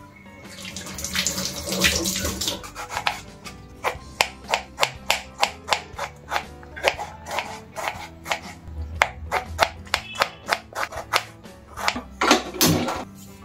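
Tap water running into a stainless steel sink for about two seconds, then a knife slicing a tomato on a wooden cutting board, tapping about three times a second. Near the end comes a short, louder clatter, with background music throughout.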